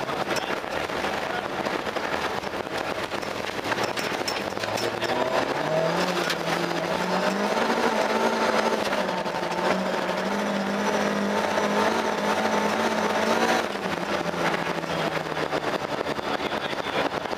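Volvo 240 rally car's engine heard from inside the cabin, accelerating hard on a gravel stage. Its pitch climbs for a couple of seconds and is held at high revs, then drops sharply about three-quarters of the way through. Tyre and gravel noise with sharp stone clicks runs underneath.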